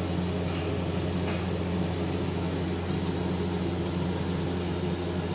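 TIG (argon) welding of stainless pipe in progress: a steady low electrical hum with a constant hiss from the welding arc and welding machine.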